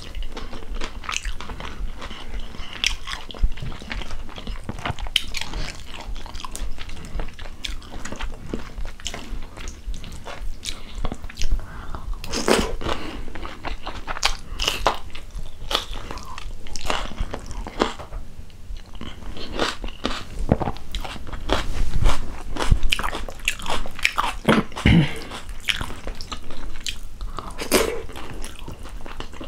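Close-miked chewing and lip-smacking of handfuls of rice and chicken stew eaten by hand, with crunchy bites now and then and a few louder bites later on.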